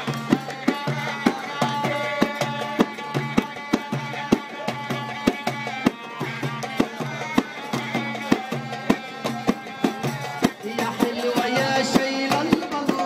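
Live Egyptian folk music. Frame drums beat a quick, steady rhythm under a melody line and a steady low drone.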